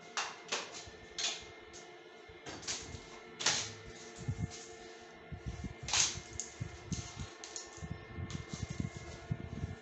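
Quiet background music: held tones under irregular sharp clicking percussion, with a low pulsing beat joining about four seconds in.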